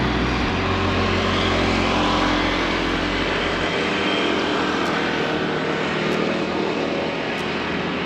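Car driving, with steady engine and road noise.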